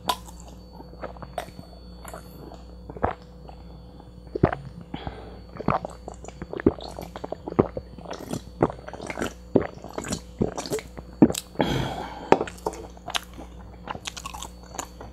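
A person gulping iced tea from a can, heard close up: an irregular run of swallows and wet mouth clicks that come thicker as the drinking goes on, with a longer breathy sound about twelve seconds in.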